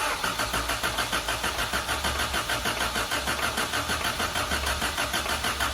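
Honda B18C1 four-cylinder engine cranking on its starter motor without catching, an even rhythmic chugging of about five pulses a second: the car is a no-start.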